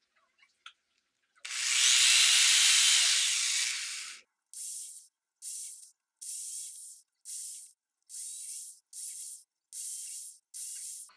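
Cordless drill driving a screw into the rubber sidewall of an old car tire: one long run of about three seconds, then eight short bursts in a row as the trigger is pulsed.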